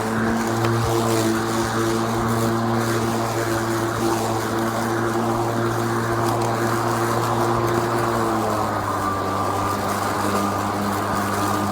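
A motor or engine running steadily with an even hum, its pitch dropping slightly about eight and a half seconds in.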